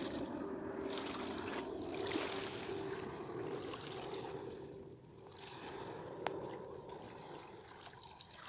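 Small waves washing and lapping on a beach shore. A faint steady hum fades out about four seconds in, and there is a single click about six seconds in.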